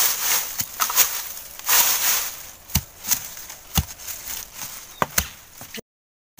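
A metal blade chopping and digging into the soil at the base of a bamboo shoot, about eight sharp irregular blows, with dry bamboo leaves rustling between them. The sound cuts out abruptly near the end.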